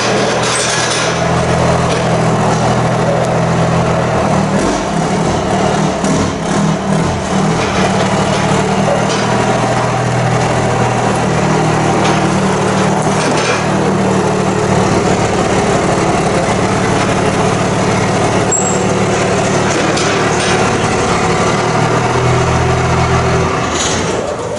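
Pickup truck engine running steadily while the truck backs an equipment trailer in; the sound falls away near the end.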